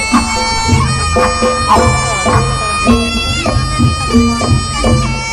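Jaranan music: a slompret (Javanese shawm) playing a reedy melody of held notes that step up and down in pitch, over a steady beat of drums.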